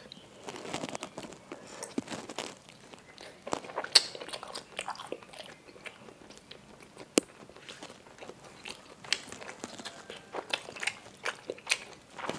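Close-up chewing and biting of a bakso beef meatball in chili sauce: wet, irregular mouth sounds. A couple of sharp clicks stand out, about four and seven seconds in.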